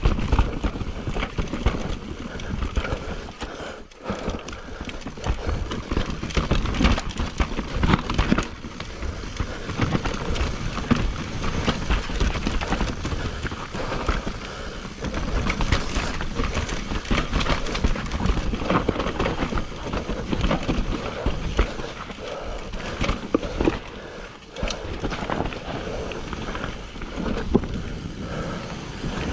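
Mountain bike riding fast down a rough dirt singletrack: tyres rumbling and the bike rattling and knocking irregularly over roots and rocks. Near the end there is a sharper clatter as the tyres reach the wooden planks of a berm.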